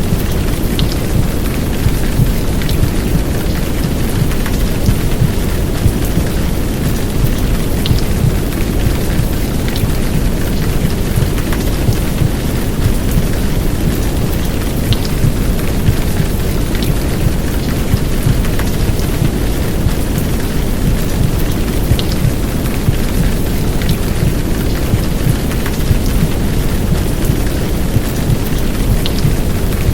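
Heavy downpour rain, with scattered sharp drop ticks, layered over a deep, steady whooshing rumble of recorded womb sound used as white noise to settle a baby to sleep.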